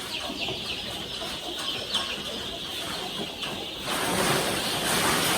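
Many young chicks peeping, with rapid, high, overlapping chirps. About four seconds in, a louder, even rushing noise comes in over them.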